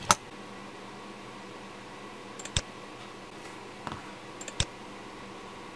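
A loud click right at the start, then three quieter, separate computer mouse clicks over a steady faint hum.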